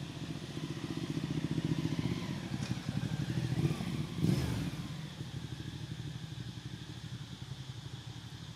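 A motor vehicle engine running, growing louder to a peak a little past four seconds in and then fading.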